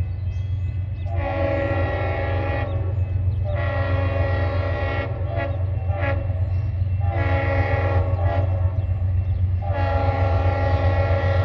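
Freight locomotive air horn sounding the long-long-short-long grade-crossing signal, then starting another long blast near the end, over the steady low rumble of the train's diesel engines.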